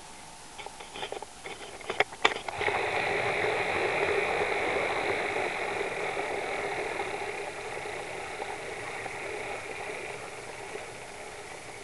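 HO scale model steam locomotive and train running on the track: a few sharp clicks in the first couple of seconds, then a steady mechanical running noise that comes in suddenly and slowly fades away.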